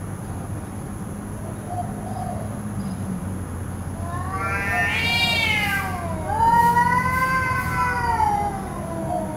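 Domestic cats in a face-to-face standoff, yowling: long, drawn-out wavering calls that rise and then fall in pitch, starting about four seconds in and loudest in the second half, over a steady low background hum. Caterwauling like this is a cat's threat display at a rival.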